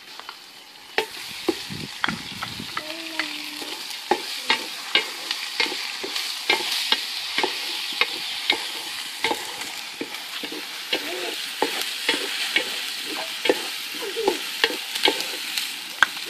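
Shallots and ginger-garlic paste frying in coconut oil in a metal pan over a wood fire, sizzling steadily, with a spoon scraping and knocking against the pan about twice a second as it is stirred. The sizzle comes up about a second in.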